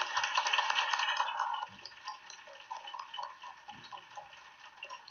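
Audience applauding, dense at first, then thinning to scattered claps about a second and a half in.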